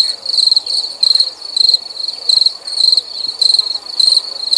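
Crickets chirping, an edited-in sound effect that stands in for dead silence: a steady run of high trilled chirps, almost two a second.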